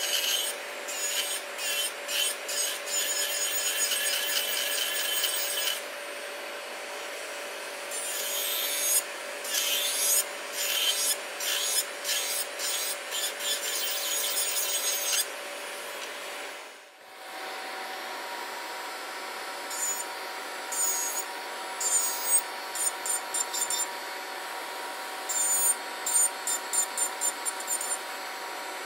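Melodysusie Scamander electric nail drill spinning a coarse carbide safety bit at about 18,000–20,000 rpm, grinding in quick short passes: first over an acrylic sculpted nail, then, after a break about 17 seconds in, over a gel matte topcoat. Under it runs the steady whine of the drill motor and a DoLike nail dust collector's fan on its higher power setting.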